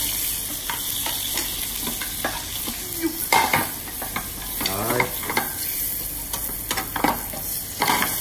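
Flour-dusted bone-in chicken legs sizzling in hot olive oil in a stainless frying pan, with irregular crackling and a few sharper clinks and scrapes of a spoon and fork against the pan as the pieces are moved. The crackle is the sign that the oil is hot enough to brown the flour and skin.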